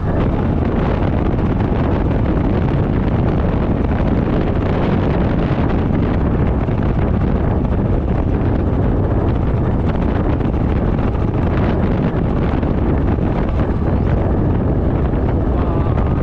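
Motorcycle riding at road speed: heavy wind noise on the action camera's microphone over the steady running of the engine.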